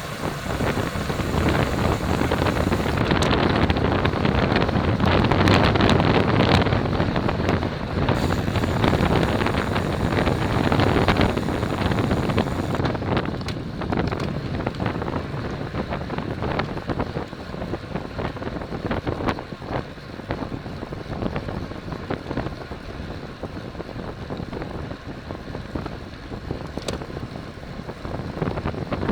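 Wind rushing over a bicycle-mounted camera's microphone at race speed, with road noise and scattered small clicks. It is loudest through the first ten seconds or so and eases after.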